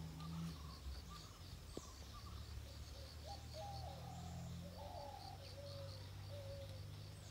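Faint outdoor birdsong: several birds giving short warbling, gliding calls, busiest in the middle, over an insect's rapid chirping pulse repeating about three to four times a second. A low steady hum runs underneath.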